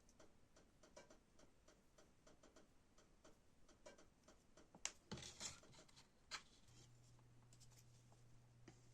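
Faint, scattered clicks and taps of small wooden sticks being handled and worked by hand, with a louder cluster about five seconds in. A faint low hum comes in about two-thirds of the way through.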